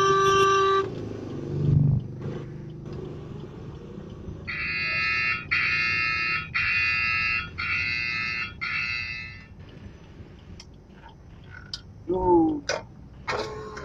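An electronic beeper sounds five times, about once a second, over a low steady rumble. Just before it, a steady pitched tone cuts off under a second in.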